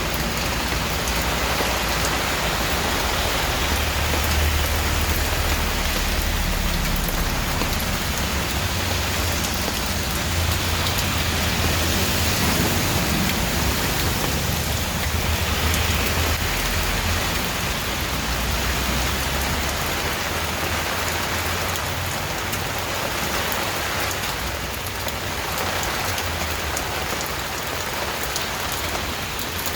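Steady, heavy rain falling on a surface, as an even dense patter. A low rumble sits underneath for about the first twenty seconds, then fades.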